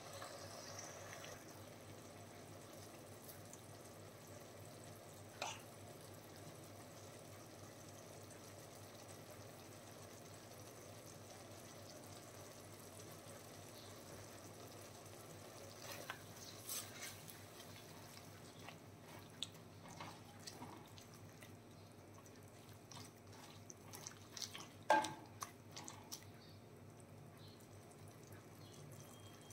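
Faint liquid sounds: scattered drips and small pops over a low steady hiss, the loudest a few seconds before the end.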